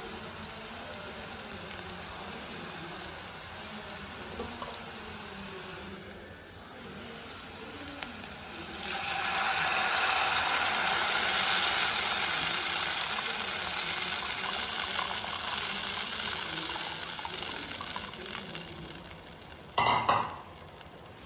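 Onions and mustard seeds sizzling steadily in a hot stainless-steel kadai; about nine seconds in, liquid is poured into the hot pan and a much louder sizzling hiss rises, slowly easing over the next ten seconds. Near the end, two sharp knocks.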